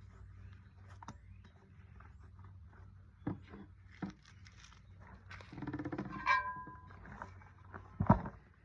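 Scattered knocks and clinks of hand tools and a tire being handled while a tire is mounted on a trailer rim, with a short high-pitched squeak about six seconds in and a sharper knock near the end.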